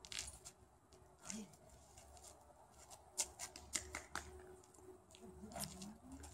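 Faint, scattered clicks and scuffs of a small dog scrabbling and tugging on a toy at a person's feet on concrete, busiest a little past the middle, with a few short low rising sounds near the end.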